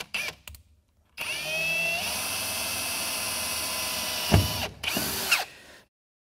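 Cordless drill boring a pilot hole in a pickup truck's bed floor: a few short trigger blips, then several seconds of steady running with the motor whine stepping up slightly in pitch. A sharp knock comes about four seconds in, followed by a short last burst as the motor winds down.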